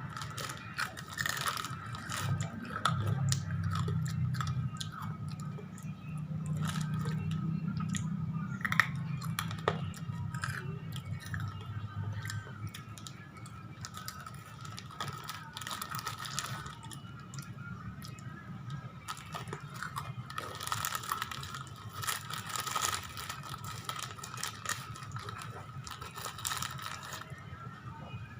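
A person chewing crunchy spicy chips (keripik pedas), with irregular crisp crunches coming in clusters.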